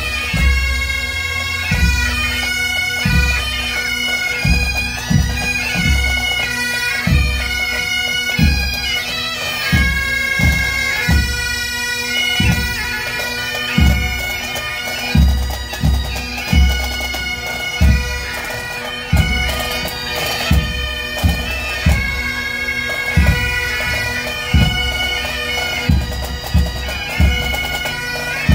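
A pipe and drum band playing Great Highland bagpipes while marching: a steady drone under a bright, reedy melody, with drums beating the time.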